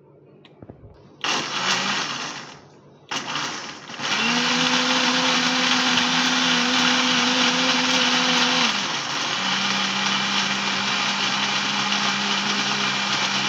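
Electric kitchen blender pureeing boiled falsa (phalsa) berries in their cooking water: two short pulses, then a continuous run whose motor hum drops slightly in pitch about halfway through.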